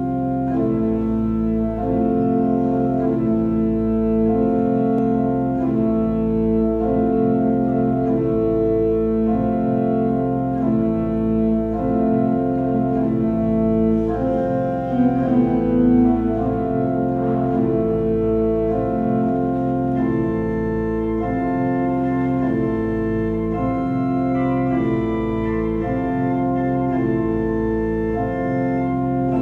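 Pipe organ playing a slow piece of sustained chords that change every second or so, over a steady deep bass.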